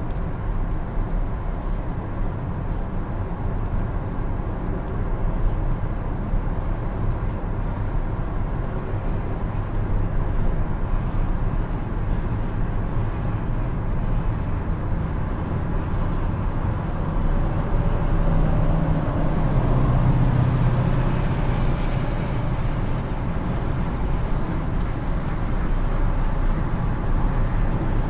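Cabin noise of a 2020 Lexus ES 350 at highway speed: steady tyre and road rumble with the 3.5-litre V6 humming underneath. A low drone swells about two-thirds of the way through as the car accelerates from about 90 to 110 km/h.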